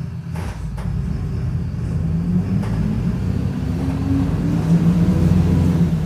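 Mercedes-Benz OF-1722M city bus pulling away and accelerating, its engine and drivetrain rumble building up with a rising drone. There are a couple of light knocks about half a second in. This bus's rear differential growls.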